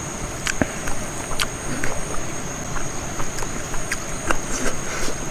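Close-miked eating sounds: wet clicks and smacks of chewing and the squish of fingers mixing and squeezing sticky rice, over a steady high-pitched whine.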